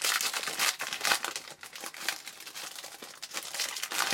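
A trading card pack's wrapper being torn open and crinkled by hand: a dense crackling rustle that starts abruptly, eases off in the middle and flares up again near the end.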